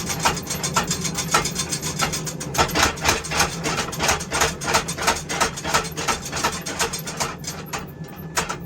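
Power hammer pounding a hot san mai billet with a wrought iron jacket: fast, even blows about five a second over a steady motor hum, stopping shortly before the end.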